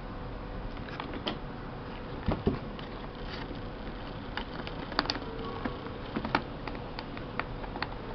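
Scattered small clicks, taps and scrapes of hand work on an electric coffee maker's wiring and plastic housing, as a loose switch connection is tightened with a screwdriver and a wire connector is pressed into place, with a couple of louder knocks.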